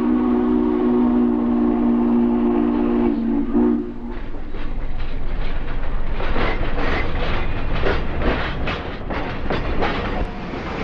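Southern Pacific 4449's steam chime whistle blowing a steady blast that cuts off about four seconds in. It is followed by the fast, even beat of the steam locomotive working slowly past, about three beats a second.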